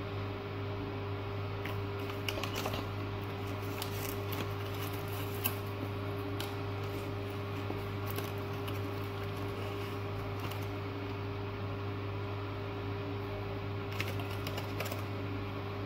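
Steady low mechanical hum, with a few scattered light clicks and taps.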